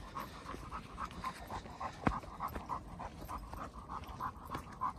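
A German hunting dog panting, a quick, even rhythm of short breaths several times a second. A single sharp click comes about two seconds in.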